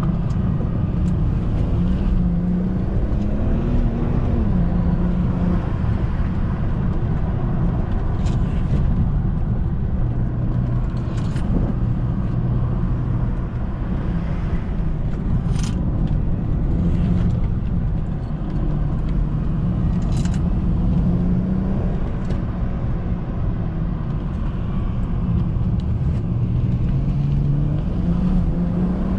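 BMW 335i's N54 twin-turbo inline-six running on the road under way, its pitch stepping up and down with speed changes and gear shifts, over steady tyre and road rumble. A few brief clicks along the way.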